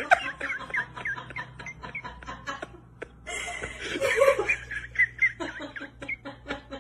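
People laughing on and off in short bursts, loudest about four seconds in.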